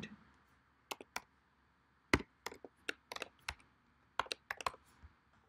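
Typing on a computer keyboard: separate sharp keystrokes at an uneven pace, with short pauses between small runs of keys.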